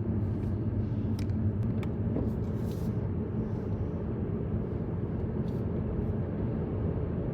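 A car driving at highway speed: steady low engine and road rumble, with a few faint brief ticks.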